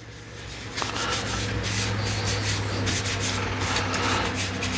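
Cloth rubbing boiled linseed oil onto a turned wooden bird-feeder base, a scratchy rubbing that starts about a second in over a steady motor hum.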